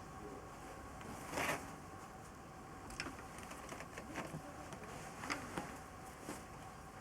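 A few light, scattered clicks and taps of small metal parts and tools being handled, with a brief scraping rustle about a second and a half in.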